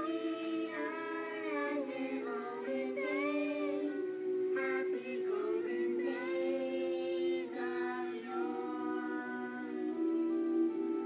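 A Christmas song from a cartoon playing through a television: character voices, mostly female, singing a melody line by line over steady held chords.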